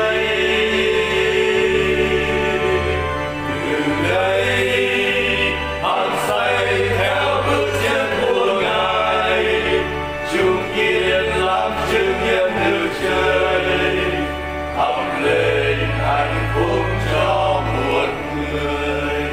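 Vietnamese Catholic hymn sung in Vietnamese to instrumental accompaniment, with held bass notes under the vocal line.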